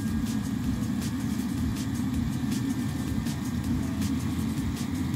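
Eberspacher hydronic diesel coolant heater running: a steady low rumble from its burner and exhaust, with light ticks about every half second.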